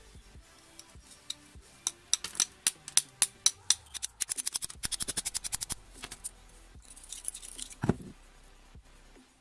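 A stiff brush scrubbing rust off a steel knife blade. It starts as separate strokes about four a second, then a quick run of about ten a second. A dull knock comes near the end.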